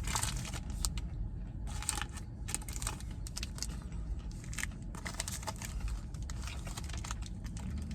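Crinkling of a Payday candy bar wrapper as the bar is handled and eaten: many short, irregular crackles over a low steady rumble.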